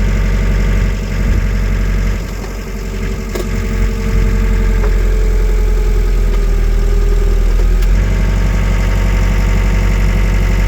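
Wacker Neuson 901S skid steer's diesel engine running under load as the loader works to lift a full 1,000-litre tank. About two seconds in, the engine note dips and changes. A steady, slightly falling whine then comes in for around four seconds, with a click where it starts and another where it ends.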